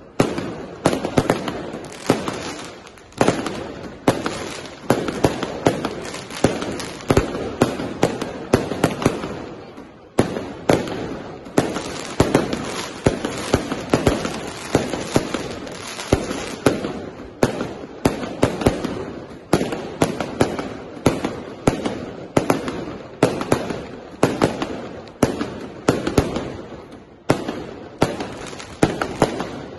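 Fireworks display: a continuous barrage of shell bursts, several sharp bangs a second without a pause.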